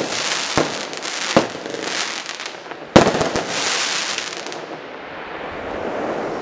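Earth Tremor 200-shot, 20 mm fireworks cake firing aerial shells. Sharp bangs come about half a second, one and a half and three seconds in; the last is the loudest and is followed by a rapid crackling that trails off.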